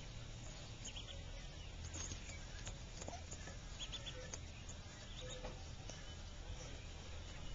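Mallard ducklings peeping faintly, a few short high peeps at a time, now and then, with light ticks of bills pecking at feed pellets, over a steady low hum.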